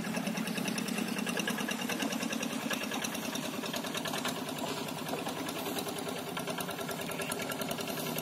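Two-wheel hand tractor engine running steadily as it ploughs a wet rice paddy, with a fast, even chugging beat.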